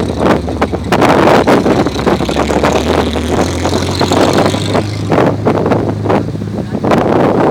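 Toyota Land Cruiser 70-series engine working hard in sand, its revs climbing about three seconds in and holding high, with heavy wind buffeting on the microphone.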